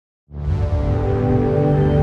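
Soundtrack music that cuts in suddenly after a brief silence, loud and thick with held low notes.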